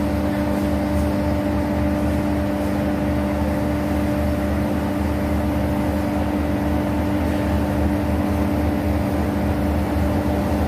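Diesel locomotive engine running with a steady, even drone and low rumble as the train approaches.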